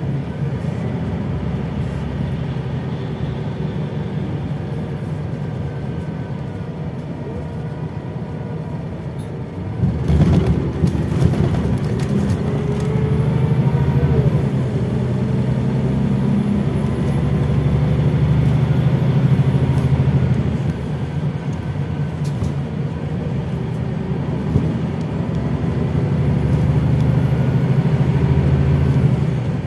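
Scania OmniLink I city bus heard from inside the passenger cabin while driving: a steady low engine and drivetrain drone that grows louder about ten seconds in, with faint rising whines as it speeds up.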